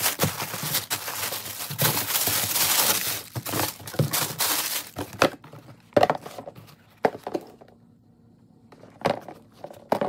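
Tissue paper crinkling and rustling as sneakers are unwrapped in their shoebox, continuous for about the first five seconds. After that come a few separate short rustles and knocks as the shoes are handled.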